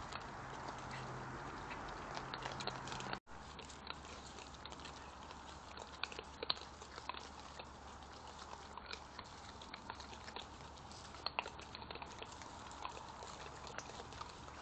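European badgers feeding on the ground, with scattered small crunches and clicks of chewing over the trail camera's steady hiss. The sound cuts out briefly about three seconds in.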